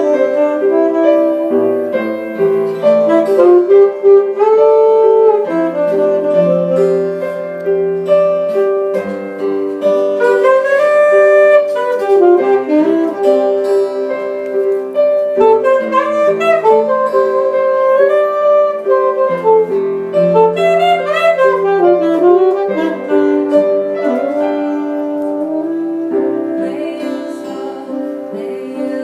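Jazz band playing an instrumental introduction, a saxophone carrying a sliding melody over piano chords.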